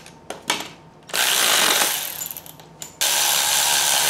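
Red cordless electric ratchet running in two bursts, tightening 13 mm bolts on a tie rod assembly, with a couple of light clicks near the start.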